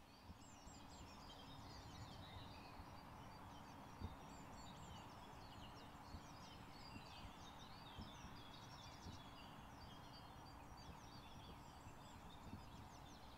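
Faint chorus of small songbirds chirping continuously, many short quick calls overlapping, over a low steady hum. One soft knock about four seconds in.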